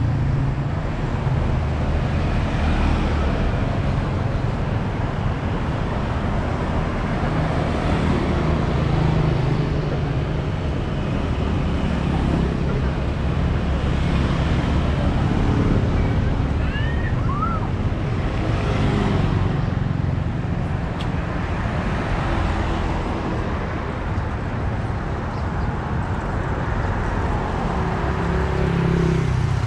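Street traffic noise: motor vehicle engines running steadily with a constant low hum. A few short rising chirps a little past the middle.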